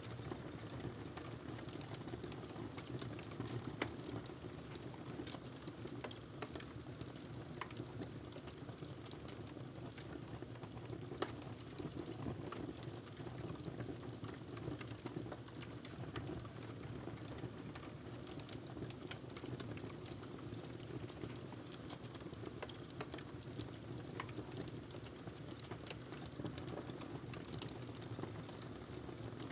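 Wood fire crackling in a fireplace: a steady low rumble of burning with scattered small snaps and pops throughout, two of them a little sharper.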